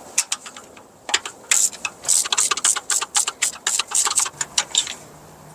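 Ratchet wrench on a spark plug socket clicking in quick back-and-forth strokes, about five clicks a second, as a spark plug is unscrewed. The clicking starts about a second in and stops near the end.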